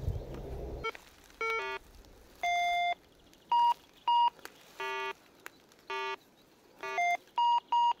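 Minelab Go-Find 66 metal detector sounding short target-tone beeps that change between lower and higher pitches, the high beeps repeating about twice a second near the end: the detector signalling a buried metal target under its coil. Before that, a low rumbling noise cuts off about a second in.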